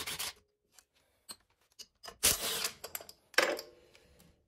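Cordless ratchet whirring briefly as it backs out the 13 mm bolts of a snowmobile engine's pull-start gear: a short spin right at the start and a longer one about two seconds in. A sharp metallic clank follows about three and a half seconds in, with small clicks of metal parts being handled.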